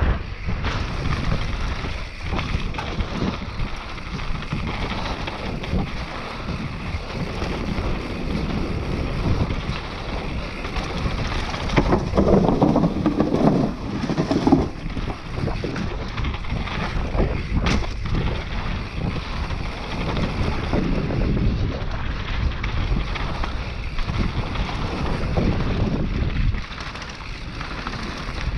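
Wind buffeting the microphone of a mountain bike rider descending a trail, over a constant rumble of tyres rolling on dirt and the bike rattling over bumps. A rougher, louder stretch of rumbling comes about halfway through, and a single sharp click a few seconds later.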